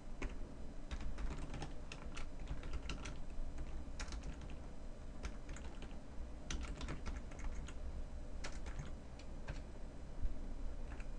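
Computer keyboard being typed on in short runs of keystrokes with brief pauses between them, over a faint low hum.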